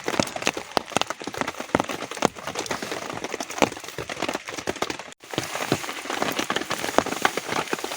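Rain falling steadily, with many separate drops striking close by. The sound cuts out for an instant about five seconds in.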